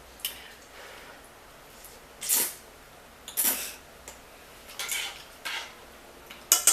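Eating ramyon noodles from a bowl: utensils clatter against the dish in about six short sounds, spaced roughly a second apart.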